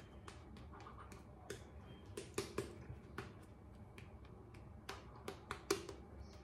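Shaving brush working lather over the face: faint, irregular wet clicks and squishes, a few a second, as the bristles press and swirl the soap lather on the skin.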